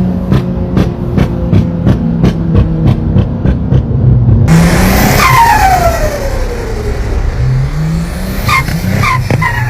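Turbocharged car engine revving with regular sharp ticks. About halfway through a loud rush of air starts, with a turbo whistle falling steadily in pitch as it spools down. Near the end come short chirps of turbo flutter as the engine revs again.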